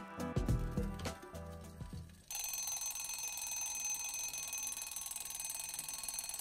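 A short bit of bright plucked-string music; then, about two seconds in, it cuts to a continuous high-pitched alarm-like ringing that carries on steadily.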